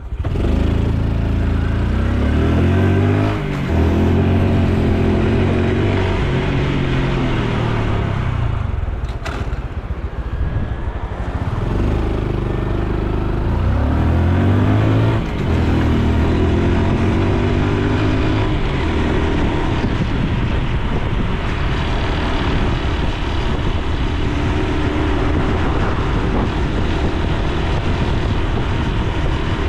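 Honda Super Cub C125's 125 cc single-cylinder engine pulling away and rising in pitch, with a brief dip at a gear change about three and a half seconds in. It winds down as the bike slows, accelerates through another gear change, then settles into a steady cruise under road noise.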